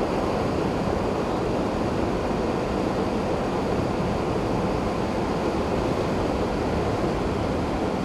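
Steady rushing road and wind noise inside a moving vehicle's cabin.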